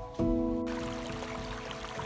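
Background music with plucked, sustained notes. About two-thirds of a second in, a steady rushing hiss cuts in abruptly under the music.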